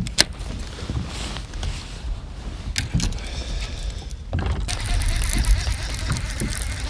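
Clicks and rustling of hands handling a baitcasting rod and swapping lures, with a sharp click just after the start, over a low rumble of wind on the microphone that grows into a louder rush about four seconds in.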